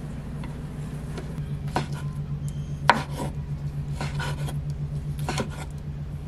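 Chef's knife slicing cooked steak on a wooden cutting board, the blade knocking on the board with each cut, five or six times. A steady low hum runs underneath.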